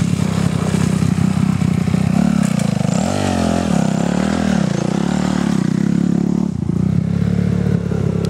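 Dirt bike engine running, its revs rising and falling a few times about three to five seconds in.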